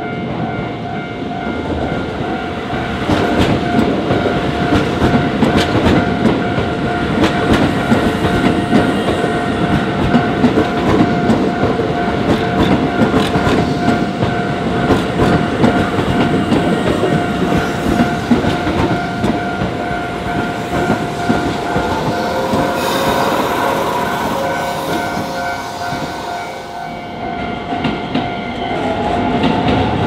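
A Japanese level crossing's warning bell rings steadily while a Keisei electric commuter train rumbles past, its wheels clattering on the rails. Near the end a second train comes through with a rising motor whine.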